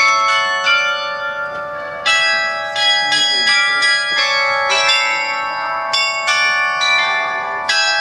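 Tower bells rung one after another, about two to three strikes a second, each strike ringing on under the next so the notes overlap.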